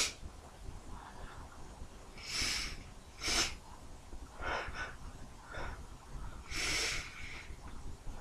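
A person stifling sneezes, held back in the nose and throat, between breathy gasps. The sharpest stifle comes about three seconds in, with several smaller ones after it.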